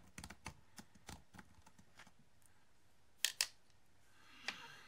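Computer keyboard keystrokes, a few scattered taps. Just after three seconds in come two loud, sharp clicks in quick succession, and near the end a soft breathy rustle.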